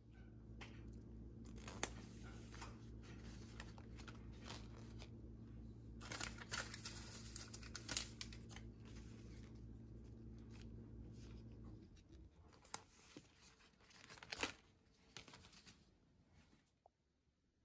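Paper gift bags with rope handles being handled: scattered rustles and sharp crackles, thickest about six to eight seconds in and again near the end. They sit over a steady low hum that stops about twelve seconds in.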